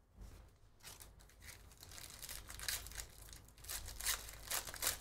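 Trading-card pack wrapper being torn open and crinkled, with cards rustling as they are handled. The rustles are sparse at first and come thicker in the last second and a half.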